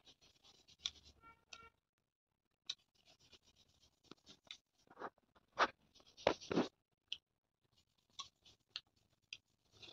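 Quiet scattered crackles and rustles of a hand picking through rice and roast pork on a banana leaf, louder for a couple of seconds past the middle.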